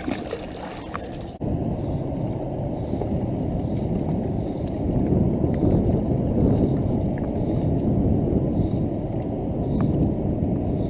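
Wind rumbling over the camera's microphone, with water washing against the jetty rocks. There are a few light clicks in the first second, and the rumble jumps louder about one and a half seconds in.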